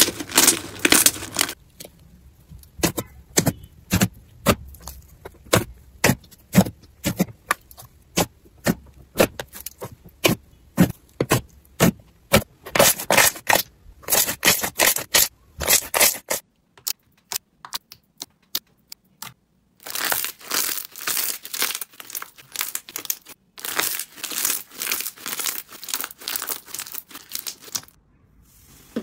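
Hands squeezing and pressing slime, giving a run of sharp pops and crackles from trapped air. The crackling is dense at the start and again in the last third, with sparser single clicks in between.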